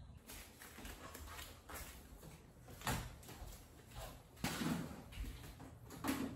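Handling noises as household items are moved about: a few dull knocks and bumps with rustling between them, the loudest about three, four and a half, and six seconds in.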